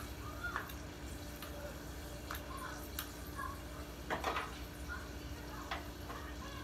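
Scattered light clicks and taps of kitchen utensils and dishes being handled, a few seconds apart, over a steady low hum.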